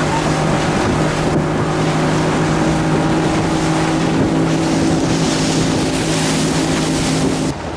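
Outboard motor of a small water-taxi boat running steadily with a constant drone over rushing water and wind noise, stopping abruptly near the end.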